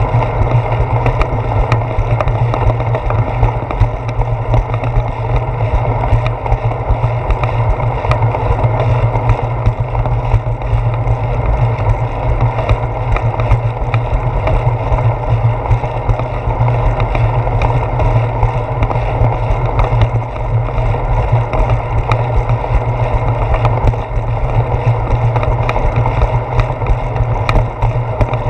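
Steady rumble of wind and road vibration picked up by a handlebar-mounted GoPro Hero 4 on a moving bicycle, with faint scattered clicks from bumps.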